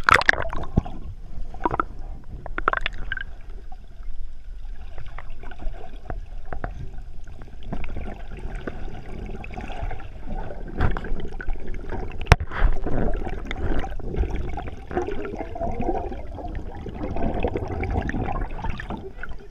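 Water splashing and sloshing, broken by many sharp knocks and clicks, busier and louder in the second half.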